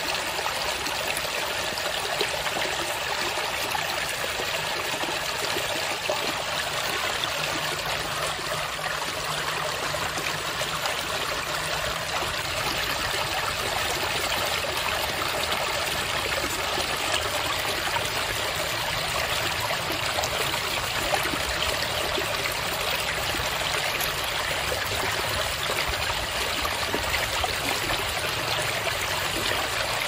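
A fast-flowing river rushing steadily over rocks, a constant even hiss of white water.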